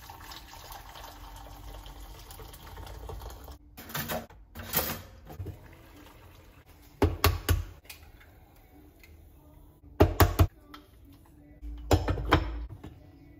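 Water pouring from a kettle into a saucepan for about three and a half seconds, then a series of clinks and knocks from the pan's glass lid being lifted and set back on the rim, loudest about 7, 10 and 12 seconds in.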